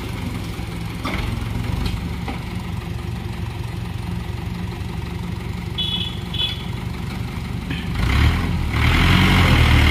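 Mahindra 475 DI tractor's four-cylinder diesel engine idling steadily, then revving up louder about eight seconds in.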